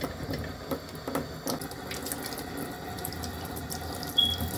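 Kitchen faucet running into a stainless steel sink, the stream splashing as a makeup brush is rinsed under it. A short high squeak near the end.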